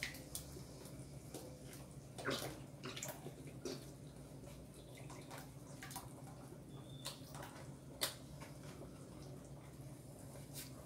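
Thick tomato sauce pouring from a carton into a frying pan: faint, scattered plops and drips, with a few sharper clicks, over a low steady hum.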